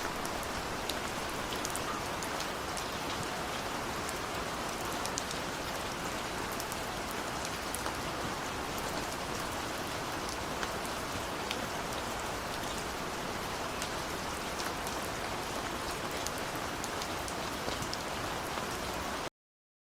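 Steady rain falling: an even hiss with scattered sharp drop ticks, cutting off suddenly near the end.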